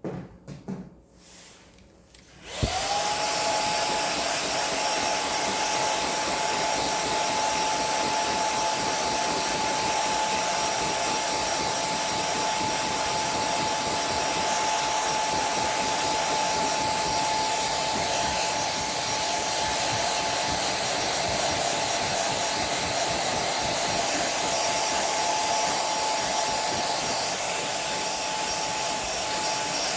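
Hand-held hair dryer switched on about two and a half seconds in, its whine rising quickly to a steady pitch, then blowing steadily. It is drying a hair tonic just applied to the scalp. A few faint handling sounds come before it starts.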